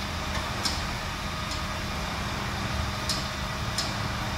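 Foot-pumped hydraulic lift trolley being pumped: a few faint, sharp clicks from the pedal and pump at uneven intervals, over a steady low hum.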